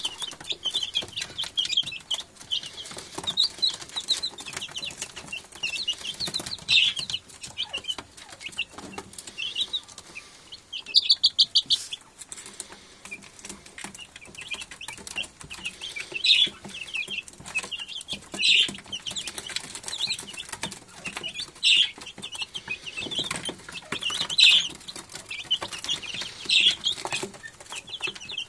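Aseel chicks peeping continually: many short, high calls, with louder peeps every few seconds and a quick run of them about eleven seconds in.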